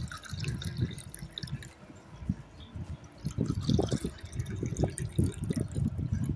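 Rose sharbat poured in a thin stream into glass tumblers, splashing and gurgling as each glass fills; it moves from one glass to a second and gets louder from about halfway.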